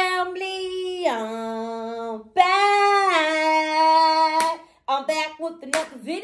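A woman singing long held notes that slide between pitches, broken near the end by a few short sharp hits.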